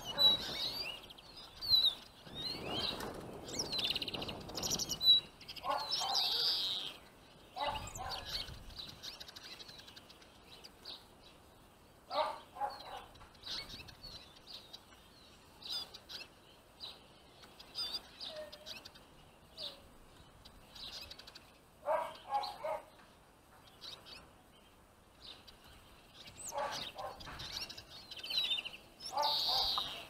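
Small songbirds chirping in scattered bursts of rapid high calls, with wings flapping, busiest in the first few seconds and again near the end.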